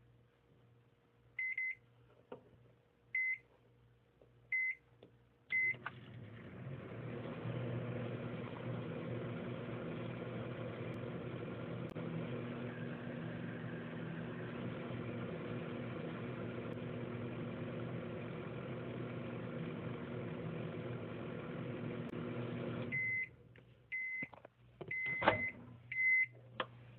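Microwave oven: four keypad beeps, then the oven runs with a steady hum for about seventeen seconds and cuts off suddenly, followed by four more beeps and a few sharp clicks.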